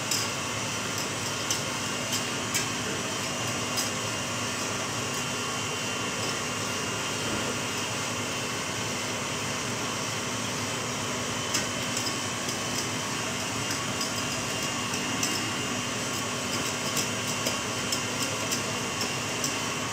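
Steady fan-like mechanical hum, with faint scattered ticks of a wire whisk stirring sugar syrup in a metal saucepan.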